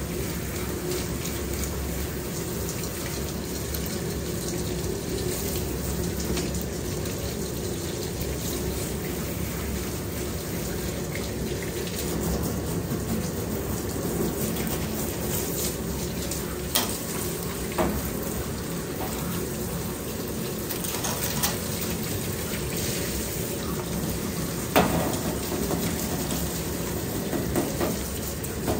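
Water running steadily from a handheld shower sprayer over a wet dog's coat in a stainless-steel tub, rinsing out conditioner. A few short sharp knocks come in the second half.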